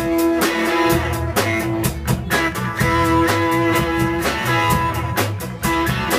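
Live rock band playing an instrumental passage with no vocals: electric guitar holding long notes over bass guitar and a drum kit keeping a steady beat.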